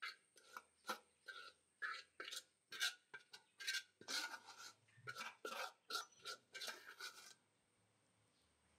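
A steel spoon scraping and spreading thick masala gravy, in a quick run of short scraping strokes that stops about seven seconds in.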